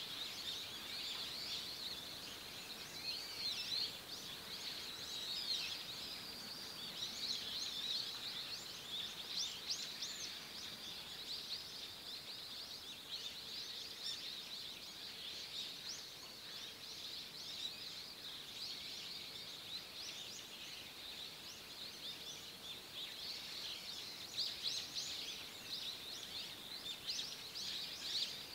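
Small forest birds calling throughout, a dense stream of quick, high-pitched chirps and twitters, busiest near the start and again near the end, over a faint steady hum.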